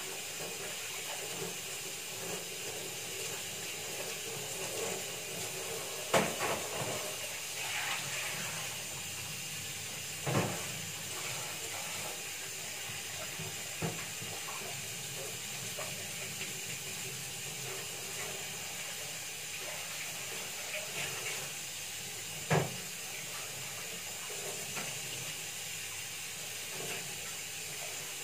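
Banana fritters frying in oil in a wok, a steady sizzle, with a few sharp knocks of kitchen utensils, the loudest about six seconds in and again near the end.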